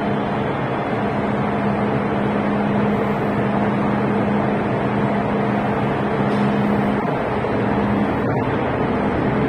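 MTR M-train electric multiple unit standing at the platform with its doors shut, giving a steady hum over a constant noise. About seven seconds in the hum changes as the train starts to pull out of the station.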